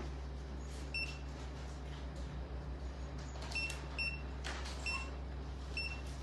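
Short, high electronic beeps from a surgical patient monitor, repeating about once a second with one longer gap, over a steady low hum.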